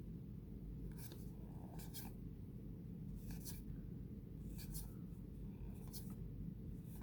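Baseball trading cards being flipped off a stack one at a time, each one a short, soft papery swish, about one every second and a half, over a steady low background hum.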